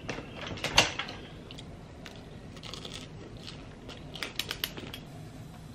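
Handling of a hardcover paper planner and pen on a table: a sharp knock about a second in as it is set down and opened, scattered soft ticks, and a quick run of small clicks near the end.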